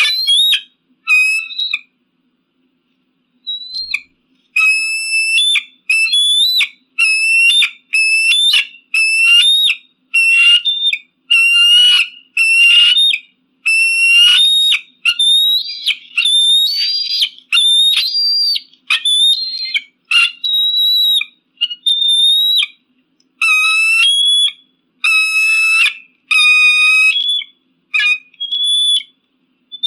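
Eagle calling: a long series of short, high, whistled calls, about one a second, each with a quick step in pitch. Two calls open the stretch, then a pause of about two seconds before the steady run begins.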